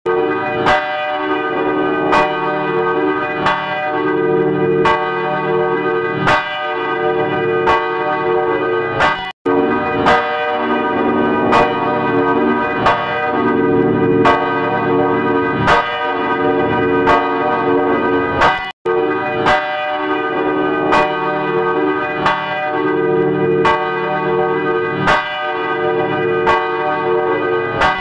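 Church bells ringing: a dense, sustained mix of overlapping bell tones, with a fresh stroke about every second and a half. The ringing cuts out abruptly for a split second twice, then carries straight on.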